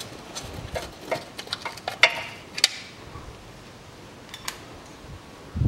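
Irregular small metallic clicks and taps, loudest about two seconds in and thinning out after about three seconds: bolts and a hand tool being handled while the pan bolts of a CVT oil pan are threaded in by hand.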